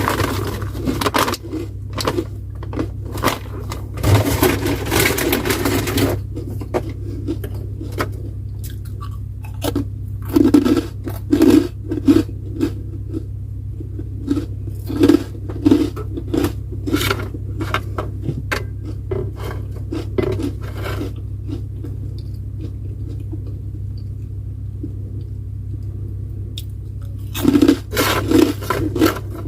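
Close-up eating sounds: chewing and crunching in irregular bursts, with scrapes and clicks, under a steady low hum. The sounds thin out to a quiet stretch a little after two-thirds of the way through, then pick up again near the end.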